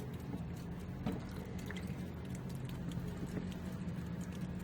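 Water dripping from a leaking radiator core, a few faint separate drips, over a steady low hum.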